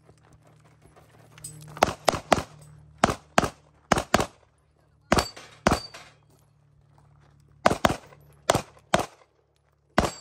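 Staccato P pistol fired rapidly on a USPSA stage: about a dozen shots, mostly in quick pairs, in strings separated by short pauses while the shooter moves between positions.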